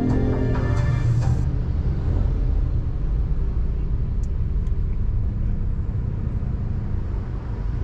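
Steady low rumble of a car's engine and tyres on the road, heard from inside the cabin. Background music plays for about the first second and a half, then stops.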